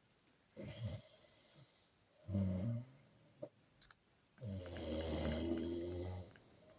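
A person snoring: two short snores, then a longer one lasting about two seconds near the end, with quiet pauses between them.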